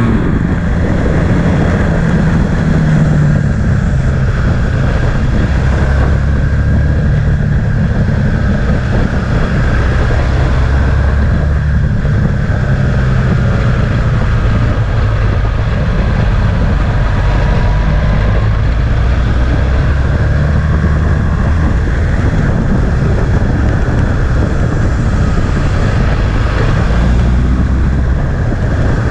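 Motorcycle engine running at road speed, its note stepping up and down with the throttle, under steady wind noise on the microphone.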